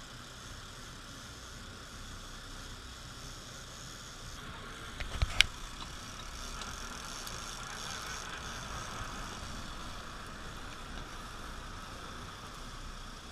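Steady running noise of a sport-fishing boat, its engine and the water going past the hull, with a few sharp knocks about five seconds in.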